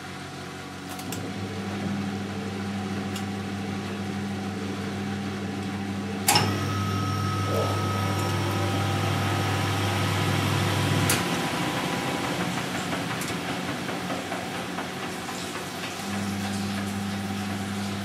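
Siemens Siwamat 960 front-loading washing machine in its intermediate spin: the drum spinning with a steady low motor hum. Sharp clicks come about six and eleven seconds in; after the second the deepest part of the hum drops away and it comes back about sixteen seconds in.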